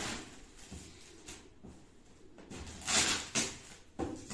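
Packing tape being pulled and torn off a cardboard carton, in a few short tearing sounds, the loudest about three seconds in, with a sharp click near the end.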